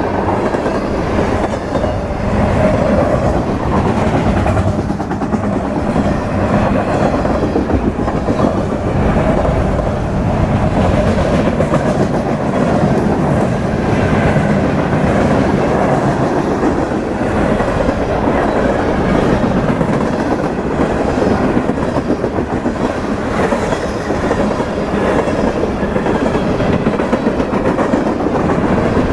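Freight train cars rolling past, a steady loud rumble with the wheels clicking over the rail joints.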